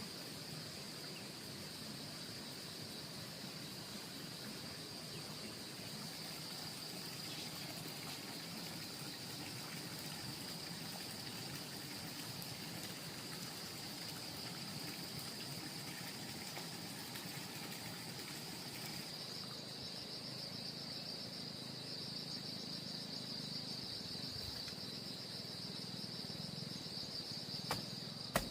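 A steady, high-pitched chorus of insects, with a continuous even drone that grows a little stronger and pulses after about two-thirds of the way through. A couple of faint clicks come near the end.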